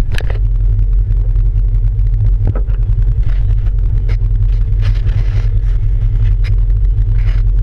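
Polaris RZR side-by-side's engine idling steadily, a constant low drone, with a few short clicks or knocks scattered through it.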